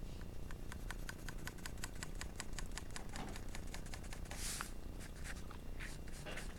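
Graphite pencil shading on paper: quick short hatching strokes, about seven a second, then a longer stroke a little past the middle and a few scattered strokes.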